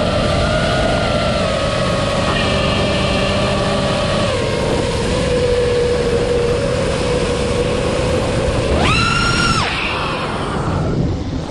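iFlight Nazgul5 V2 five-inch FPV quadcopter's brushless motors whining over a steady rush of wind and propeller wash. About nine seconds in the throttle is punched: the whine jumps sharply higher, holds for under a second and falls back.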